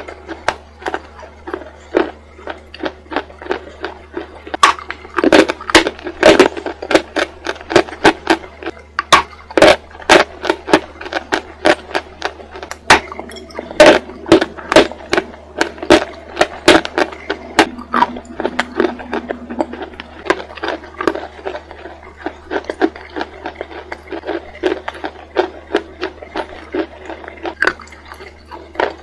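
Someone biting and chewing a block of dry white chalk: a fast, irregular run of sharp, crisp crunches and crackles, over a steady low hum.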